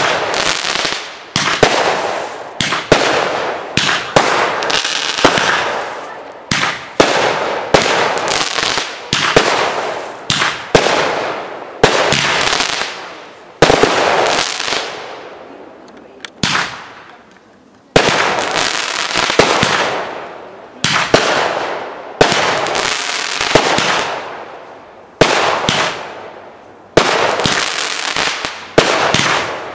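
Brightsky Fireworks 'Full Force' firework barrage firing a rapid string of shots, one or two bangs a second, each fading in a hiss of sparks. There is a short lull a little past halfway before the shots pick up again.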